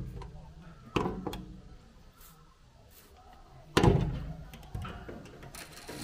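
A few dull thumps at irregular intervals, each dying away quickly, the heaviest about four seconds in.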